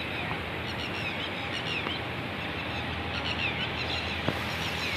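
Red-wattled lapwings calling overhead: short, sharp, high calls in repeated clusters, over a steady low hum.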